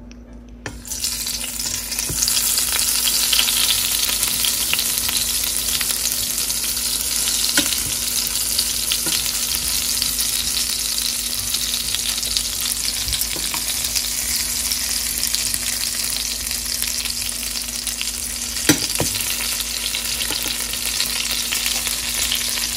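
Thick, chilli-masala-coated slices of large eggplant sizzling in hot oil in a nonstick frying pan. The sizzle starts suddenly about a second in as the first slice goes in, then holds steady, with a sharp knock about three-quarters of the way through.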